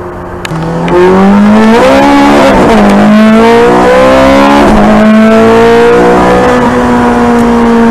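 Ferrari 430 Scuderia's 4.3-litre naturally aspirated V8, heard from inside the car, going to full throttle about a second in and accelerating hard. The engine note climbs and drops at two quick upshifts, then holds a high, steady pitch.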